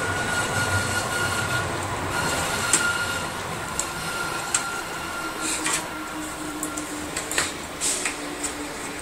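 Handling noise from power-supply cables and plastic connectors: scattered sharp clicks and rattles over a steady background hum with a faint whine.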